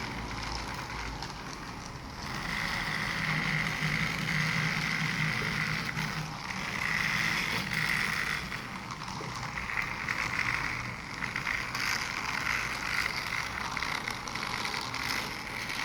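Toy train locomotive running on its track: a steady motor whir with wheel and track noise, growing louder and softer every few seconds.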